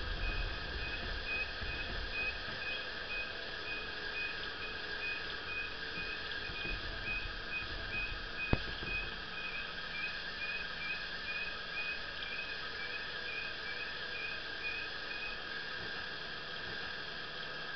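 A small electric truck reversing slowly, its reverse beeper sounding a steady high beep about twice a second that stops near the end as the truck comes to rest. A steady hum runs beneath, and there is one sharp click about halfway through.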